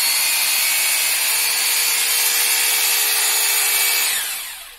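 Nakasaki 960-watt SDS-Plus rotary hammer drill running free with no bit in work, a steady high motor whine. About four seconds in the trigger is released and the motor winds down, the whine falling in pitch as it fades.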